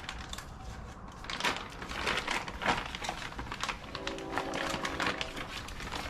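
Irregular clicking, tapping and crinkling from hands handling the tools and plastic bits of a tire plug kit. A short steady tone shows up about four seconds in.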